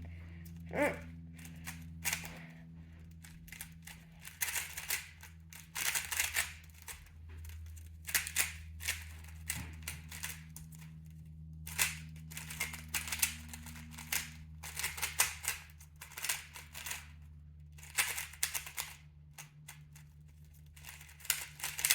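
GAN 11M Pro 3x3 speed cube being turned fast during a timed solve: quick runs of clacking layer turns broken by short pauses. A steady low hum runs underneath.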